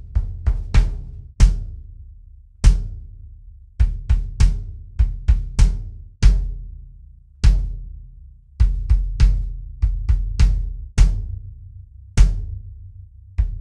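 A 22x18 DW bass drum played alone with a kick pedal, the batter head changing between takes from a Remo Controlled Sound to a Powerstroke 3 and then a Powerstroke 4, all pre-dampened clear heads. It plays a repeating pattern about every four seconds: a quick cluster of strokes, then one or two single strokes. Each stroke is a sharp beater click over a short, low boom that dies away.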